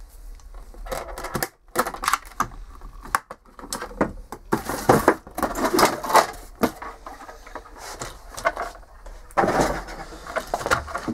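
Cardboard box and packing being handled: irregular scraping, rustling and knocks as an RC truck is lifted out of its box and set down on a table.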